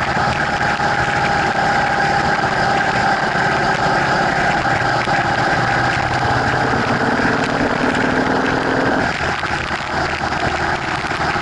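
Motorcycle riding at freeway speed: the engine runs steadily under wind and road noise on a bike-mounted action camera. A lower engine tone builds over a few seconds and drops away about nine seconds in, and the sound is slightly quieter after that.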